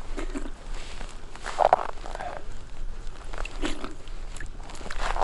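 A man drinking icy water scooped by hand from a hole in river ice: several short sips at his cupped hand, with water dripping off his fingers and small crunches of snow.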